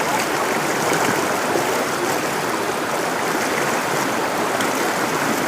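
River water flowing, a steady rushing and burbling.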